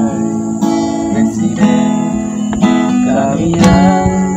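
Acoustic guitar strummed in chords, at a steady level.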